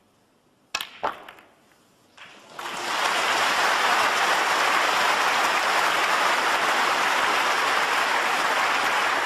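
Snooker shot: a sharp click of cue on cue ball about three-quarters of a second in, a second ball-on-ball click just after. Then, from about two and a half seconds, a large arena crowd applauds steadily.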